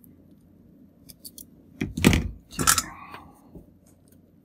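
Light clicks of small tools being handled, then a pair of metal wire strippers set down on a cutting mat with two loud knocks a little over half a second apart, about two seconds in.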